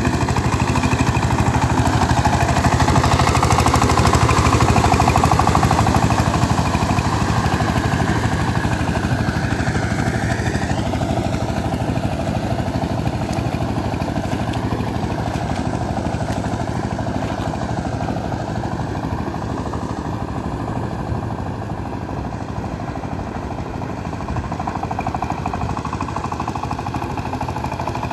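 Two-wheel power tiller's engine running steadily under load as it works a flooded rice paddy after repair. Loudest in the first several seconds as it passes close, then gradually fading as it pulls away.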